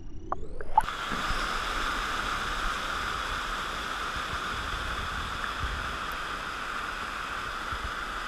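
Small waterfall on a rocky river rushing and splashing steadily into a pool. The first second is muffled, heard from underwater, before the full rush comes in.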